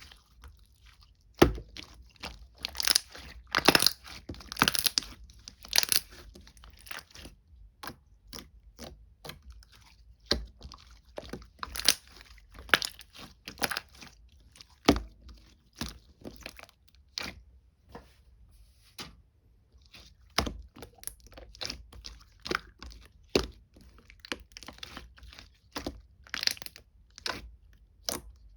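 Slime being squeezed and poked by hand: irregular sharp crackles and pops, with a few longer crunchy bursts in the first few seconds.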